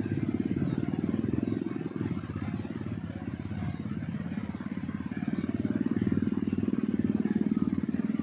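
A small engine running steadily, a low rapid pulsing hum that grows a little louder in the second half.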